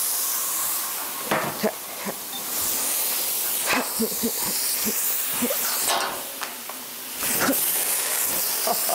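Food sizzling and hissing on a hot flat-top hibachi griddle, with scattered short clinks of a metal spatula on the steel. Near the end the hiss jumps louder as a big fireball flares up off the griddle.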